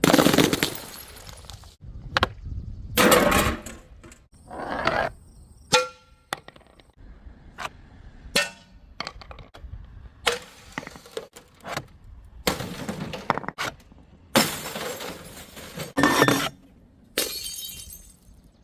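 Glass bottles smashing one after another: a run of separate crashes, each trailing off into the clinking and ringing of broken glass.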